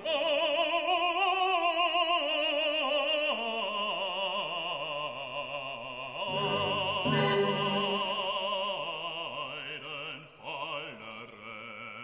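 Background music: operatic singing with a wide vibrato over a classical accompaniment, growing quieter near the end.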